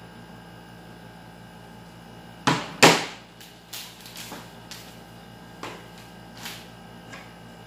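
A plate set down on a table with two sharp knocks, followed by lighter clicks and taps as packets and jars are handled, over a steady low hum.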